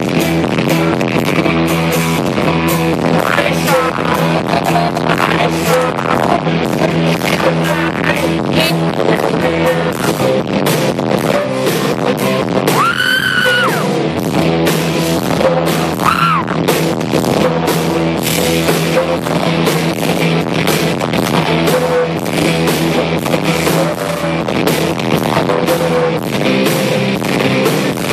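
Live rock band playing loud through a concert sound system: electric guitars, drums with regular strokes and heavy bass, with a voice singing or yelling now and then.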